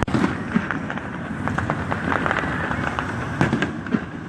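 Fireworks going off in a finale barrage: many rapid sharp crackles and pops over a steady crackling hiss.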